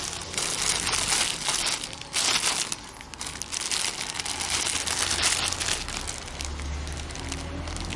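Parcel packaging being handled and opened by hand: an irregular run of rustling and crackling.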